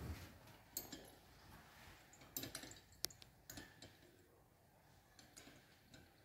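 Near silence broken by faint clicks and glass clinks from glassware being handled during a titration: a conical flask swirled under a burette as titrant is added drop by drop. One sharp tick comes about three seconds in, and the clicks thin out in the last couple of seconds.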